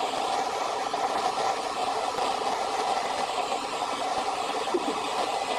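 Shower running, its spray making a steady, even hiss.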